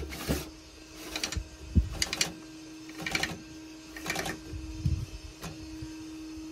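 Clear plastic lid of a Lacron sand filter being turned down onto its threads by hand, scraping in short strokes about once a second. A steady low hum runs underneath.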